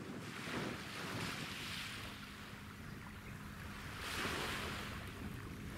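Small waves washing on the shore, surging twice (about half a second in and again around four seconds), over a low rumble of wind on the microphone and a faint steady drone of ship engines.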